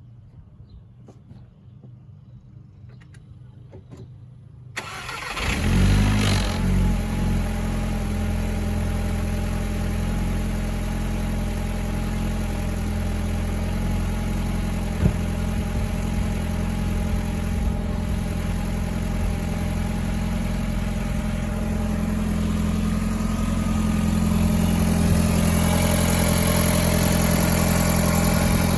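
A few light clicks, then a VW 1.8T turbo four-cylinder engine cranks and starts about five seconds in. It flares up briefly, then settles into a steady idle that rises a little near the end.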